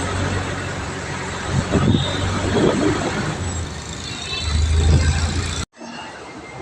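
Steady road-vehicle noise with a low engine hum, swelling louder twice, then cut off abruptly near the end by a quieter scene.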